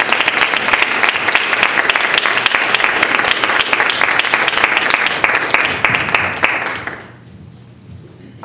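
Audience applauding, a dense run of many hands clapping that dies away about seven seconds in.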